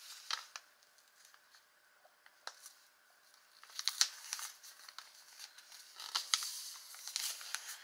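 Paper being handled on a journal page: scattered crisp rustles and small clicks in a few short clusters, with quiet stretches between.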